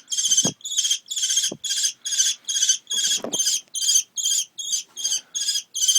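Young kestrel calling insistently for food, a steady run of sharp, high-pitched notes about three a second: a hungry bird begging. A few soft knocks sound under the calls.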